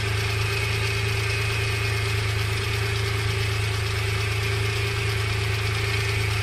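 Suzuki Multicab pickup's small engine idling steadily with an even hum. Its hard starting is traced to a broken high-tension ignition wire.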